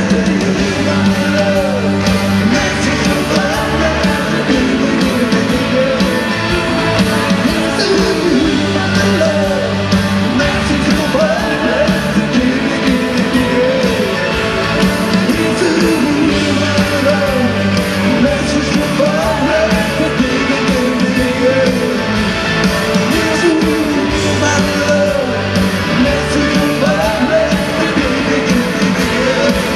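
Live rock band playing a song, with male lead vocals over electric guitars, drums and keyboards, heard from within the crowd in a large hall.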